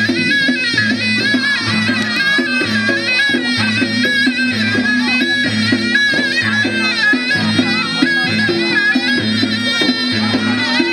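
Traditional ensemble music: a reedy wind instrument plays a wavering, ornamented melody over long hand drums beating a steady repeating pattern.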